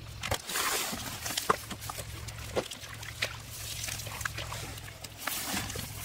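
Hands digging through wet mud and rice stubble: squelching and sloshing in the muck with rustling stalks and scattered short wet slaps and clicks.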